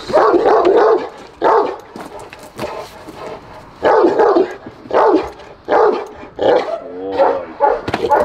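Cane Corso barking at a training decoy: a quick run of loud barks, then single barks about a second apart.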